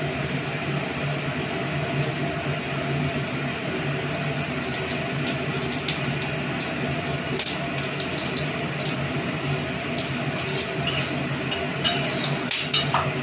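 Whole spices (cumin seeds, bay leaf, dried red chilli, whole garam masala) frying in hot oil in an aluminium kadai, crackling and popping now and then over a steady low hum. Near the end a metal spatula stirs and scrapes the pan.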